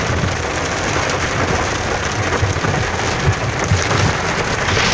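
Heavy rain beating on a moving car, a steady dense hiss over a low, fluttering rumble.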